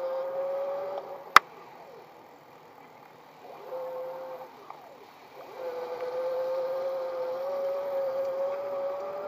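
Electric bicycle's 250 W hub motor whining, a steady tone that rises slightly, drops out about a second in, comes back briefly, then runs steadily again from about halfway through as power is applied. A single sharp click about a second and a half in.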